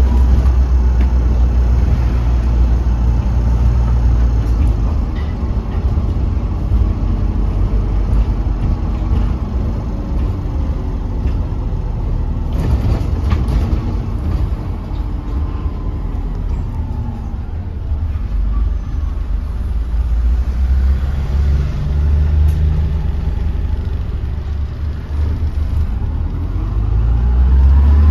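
Cabin noise of a Wrightbus Eclipse Gemini Volvo B5LH hybrid double-decker bus on the move: a steady low engine and drivetrain rumble with road noise, and a few rattles about halfway through. A faint whine slides up and down in pitch a couple of times, and the rumble swells again near the end.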